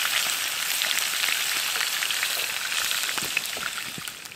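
Brook trout fillets sizzling in a skillet over a campfire: a steady frying hiss with small pops, fading away near the end.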